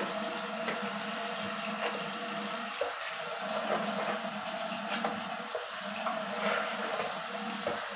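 Bathroom tap running steadily into the sink.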